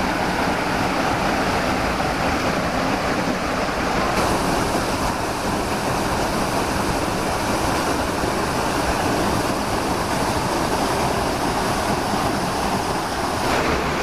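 Steady rush of a small waterfall pouring into a rocky natural pool, a continuous even noise of falling and flowing water.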